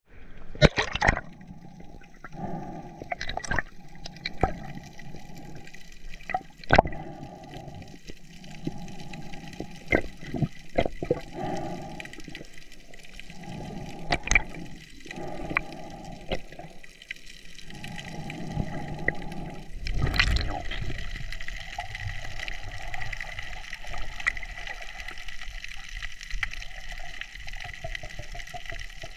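Sea water surging and sloshing in waves over a reef, coming in uneven rushes a second or two long, with frequent sharp knocks. A bigger, louder rush of water comes about twenty seconds in, after which a steadier hiss carries on.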